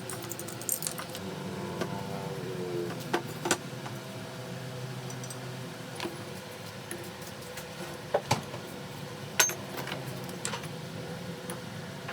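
Small metal parts clinking and tapping against each other in scattered sharp clicks, about ten over the stretch, with a faint steady low hum beneath.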